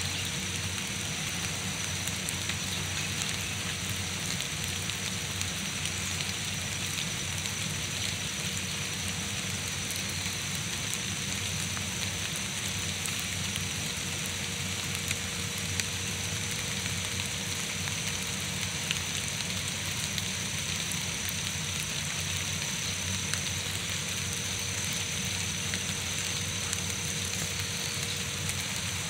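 Steady rain falling on the forest canopy and undergrowth: an even hiss with scattered light drop ticks.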